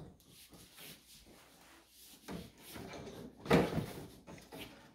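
Plastic baby play-yard panels rattling and shifting as a baby grabs and pulls on them, with a sharper knock about three and a half seconds in.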